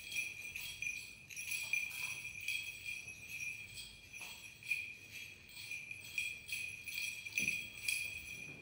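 Small bells on a swinging church censer jingling, about two shakes a second, as the priest censes the baptismal font.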